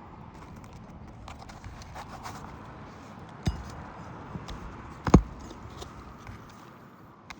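Hand-tool work on asphalt roof shingles: small scattered taps and scrapes, with two sharp knocks, the second and louder one about five seconds in.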